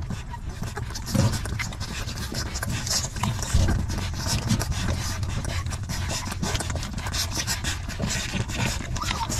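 Puppies suckling at their mother dog, a constant stream of small smacking clicks and rustling of fur, over a steady low rumble.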